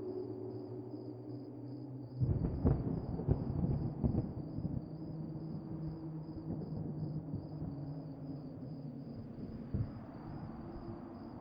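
Dark horror-ambience soundscape: a low sustained drone, broken about two seconds in by a sudden deep rumble with crackling that lasts a couple of seconds, like distant thunder, before it settles back into the drone.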